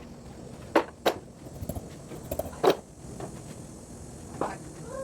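A string of sharp metallic clinks and knocks at irregular intervals: four louder ones and several fainter ones, as of metal tools or parts being handled.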